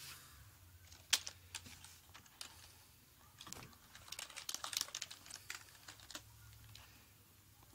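Computer keyboard being typed on: a few scattered clicks, the sharpest about a second in, then a quick run of keystrokes typing a short question for about three seconds.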